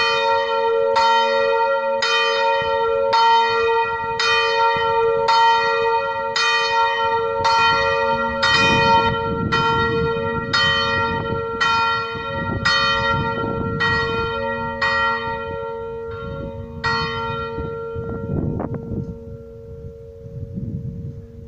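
Church bells ringing the noon bell from a stone bell tower, one struck about once a second over a long-sounding hum. The strikes stop near the end and the ringing fades away.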